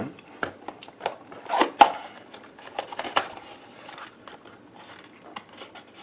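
Small paperboard box being opened by hand: scattered short taps, scrapes and crinkles of card, the loudest about one and a half to two seconds in.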